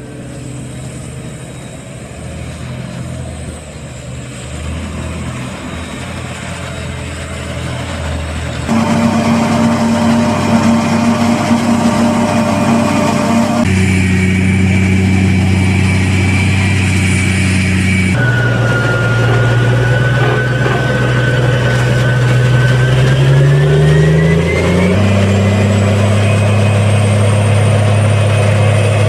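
Engines of a John Deere forage harvester and the tractors beside it running steadily under load while chopping corn silage. The engine note shifts abruptly several times, and a little past two-thirds of the way through the pitch rises as an engine speeds up.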